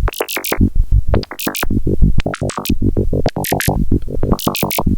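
Modular synthesizer patch of pulse-wave oscillators under cross-modulated control voltage, playing a fast, uneven stream of short blips that jump in pitch, several with bright, crackly tops.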